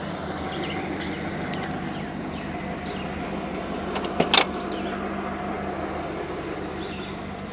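An engine running steadily, on an engine said to have an exhaust leak. A short sharp knock comes about four seconds in.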